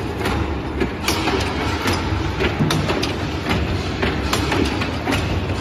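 Honeycomb charcoal briquette punching machine running: a steady low motor hum with repeated sharp knocks of the press, about two a second.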